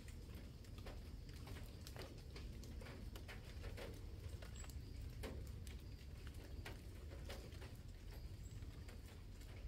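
Irregular light patter of water drops falling through the leaves after rain, over a low, steady rumble.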